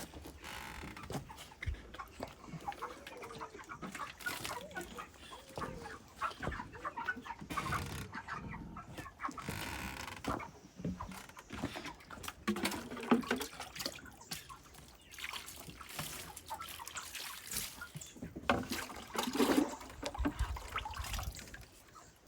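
A flock of white broiler chickens about five weeks old clucking and calling in irregular short notes, with occasional knocks and rustles among them.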